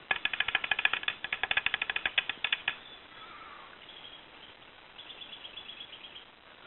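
A rapid, dry rattle of clicks, about ten a second, lasting a little over two and a half seconds. Fainter high, thin chirping trills follow.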